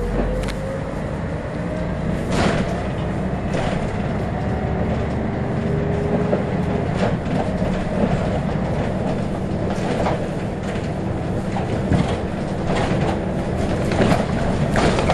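Inside the cabin of a moving Scania L113CRL single-decker bus: its six-cylinder diesel engine and driveline running with a low rumble, and a whine that climbs in pitch over the first couple of seconds as the bus pulls along. Road noise and frequent rattles and knocks from the bus body and fittings run through it.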